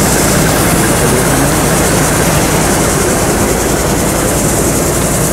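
Rice combine harvester's engine running steadily under load while its unloading auger pours threshed rice grain into a truck's cargo bed, a continuous loud hum with a high hiss over it.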